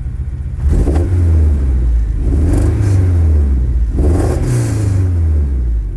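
Honda K24 four-cylinder engine, swapped into a 1990 CR-X, running at idle and then revved up and down a couple of times. This engine has an intermittent misfire at idle that the owner has not yet traced: no check-engine light and no codes.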